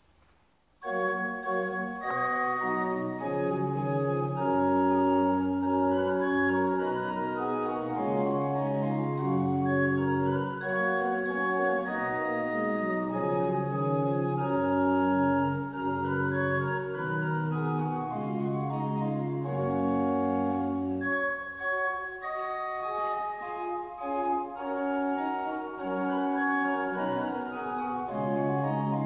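Restored church pipe organ playing held chords over long low bass notes. It starts abruptly about a second in and thins out briefly around two-thirds of the way through.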